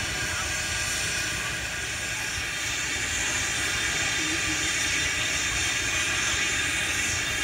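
Great Western No. 90 steam locomotive standing at rest, its steam hissing steadily.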